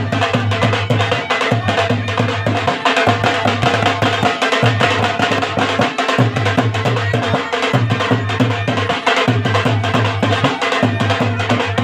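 Kishtwari folk dance music on dhol and been: the mashak bagpipe plays a melody over its steady drones while the dhol is beaten in a driving, repeating dance rhythm.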